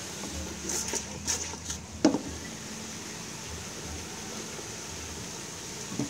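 Fish and curry paste cooking in an aluminium pot over low heat: a steady soft hiss, with a few light clicks in the first couple of seconds and a brief sharp sound about two seconds in.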